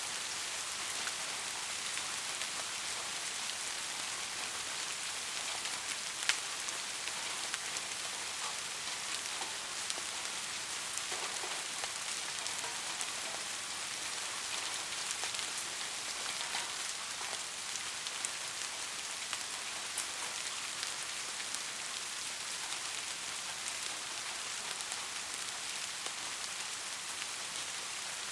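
Steady rain falling: a dense even hiss with scattered sharper drop ticks, one slightly louder tick about six seconds in.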